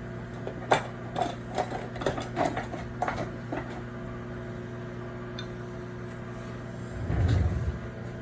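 A knife cutting raw salmon on a cutting board: a run of short knocks and scrapes for about three seconds, over a steady low hum. A dull low bump comes near the end.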